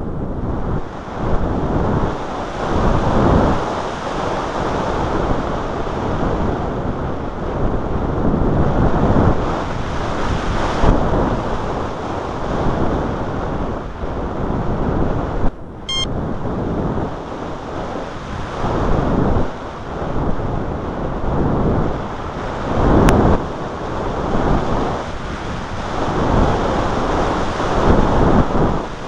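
Wind buffeting the microphone in uneven gusts that swell and fade every second or two, with a brief dropout about halfway and a single click later on.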